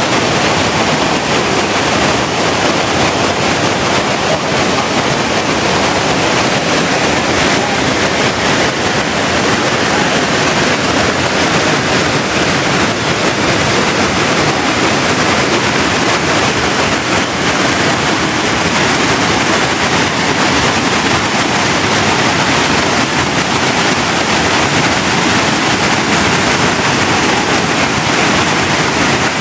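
Waterfall cascading down rock ledges into a pool: a loud, steady rush of falling water.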